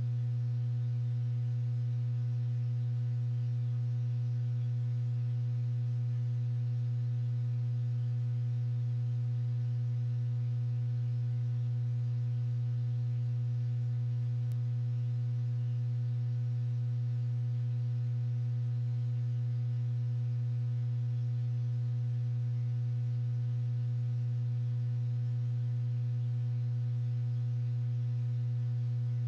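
A steady, unchanging low hum with fainter higher overtones above it.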